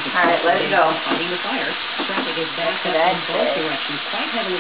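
Chicken pieces frying in hot oil in a cast-iron skillet, a steady sizzling, with indistinct voices now and then over it.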